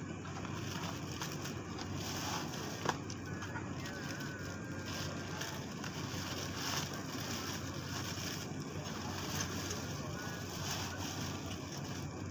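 Eating sounds over a steady low outdoor rumble: a metal spoon clinking sharply once against a ceramic bowl about three seconds in, and noodles being slurped.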